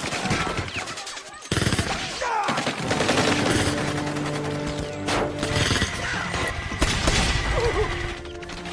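Film battle soundtrack: rapid automatic gunfire in bursts, setting in suddenly about a second and a half in, with a music score underneath.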